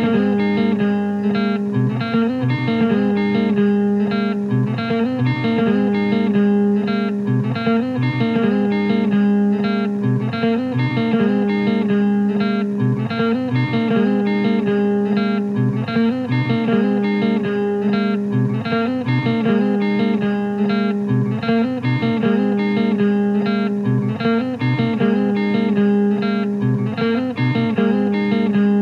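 Instrumental guitar music: ringing guitar notes repeating the same slow figure over and over at a steady level.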